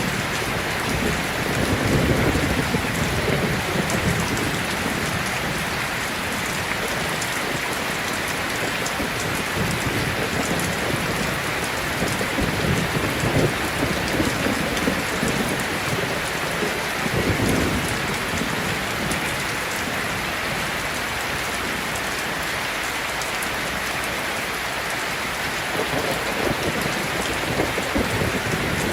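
Steady rain, an even dense hiss, with low rumbles that swell and fade several times.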